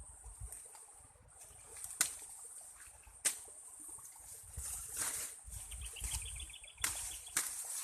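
Corn plants being handled during a hand harvest: dry leaves rustling and four sharp snaps, as of ears being broken off the stalks. A short bird trill comes in near the end, with low wind rumble on the microphone.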